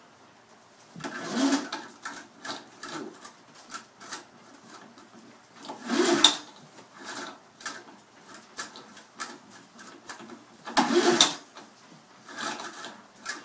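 Three pulls on the recoil starter of an old 3.5 hp Montgomery Ward mower engine, about five seconds apart, each a short rasp of rope and cranking. The engine does not fire, because the spark plug wire is off.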